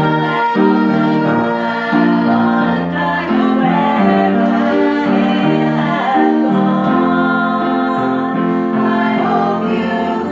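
A choir singing held chords, the notes changing about once a second.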